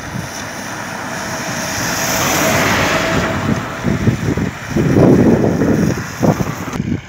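Cars driving past on a wet, slushy road: tyres hissing on the wet asphalt, swelling as a vehicle nears, then heavy irregular rumbling and gusts of wind buffeting the microphone as a car passes close, until the sound cuts off abruptly near the end.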